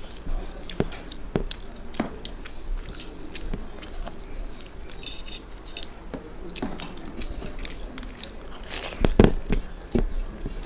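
Close-up eating sounds: chewing and mouth noises while eating rice and fish curry, with scattered clicks and clinks against plates. The loudest clatter comes about nine seconds in.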